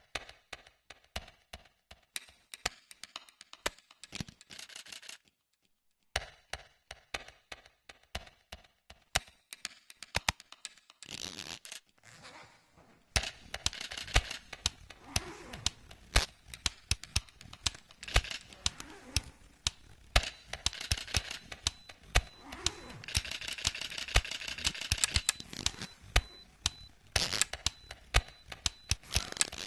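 Canon 77D DSLR camera making a long run of sharp mechanical clicks and clacks, some in quick rapid-fire strings, with a brief pause about five seconds in. From a little before halfway a steady rustling mechanical noise continues under the clicks.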